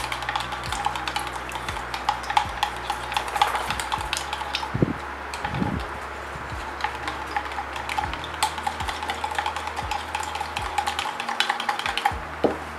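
Dye mixture of fabric paint and alcohol being stirred in a small plastic pot, the stirring stick clicking and scraping against the sides in quick, irregular taps.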